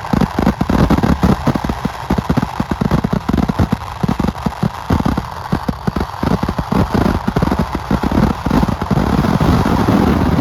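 A dense barrage of firecrackers bursting in rapid succession, many bangs a second, merging into one continuous noise near the end.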